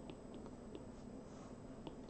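A few faint, light taps of a stylus tip on a tablet's glass screen, over low room hiss.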